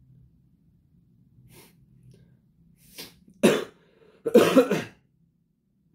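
A man coughing: two loud coughs about three and a half and four and a half seconds in, the second longer and more voiced.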